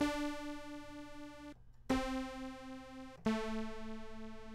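XSynth software synthesizer playing three notes that step down in pitch, each with a sawtooth-like, harmonic-rich tone. Each note starts instantly at full volume and fades smoothly to a lower held level, then stops abruptly when the key is released: a zero-attack, long-decay, low-sustain amplifier envelope giving a percussive effect.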